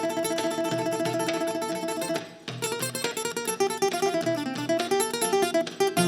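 Kora playing an instrumental passage: quick plucked notes over a repeating bass figure. It breaks off for a moment about two seconds in, then resumes with a run that falls and climbs again.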